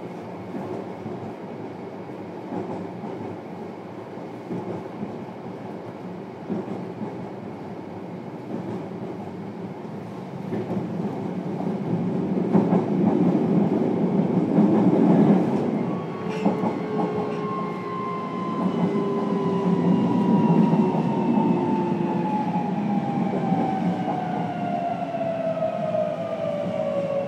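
Running noise inside a JR Kyushu 303 series electric train's motor car: steady wheel and track rumble that grows louder about ten seconds in. About halfway through, the traction motors' whine sets in as several tones that fall steadily in pitch as the train slows.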